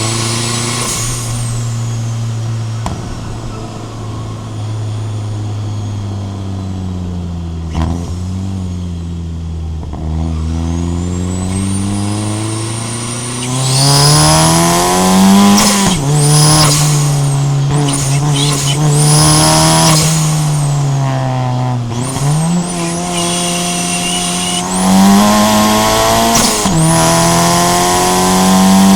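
Turbocharged Honda Fit GE8's stock L15A7 1.5-litre four-cylinder under way, boosted to 7 psi by a TD04-13T turbo. The revs sink slowly at first, then climb hard with a high whistle rising over the engine note. The pitch drops abruptly twice in the second half, as at gear changes, before climbing again.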